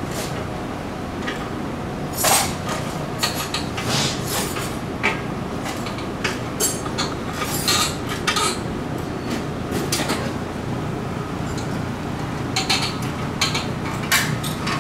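Hand tools clinking and tapping against metal fittings of an aircraft engine as parts are unbolted: a string of irregular light metallic clinks and knocks over a steady low hum.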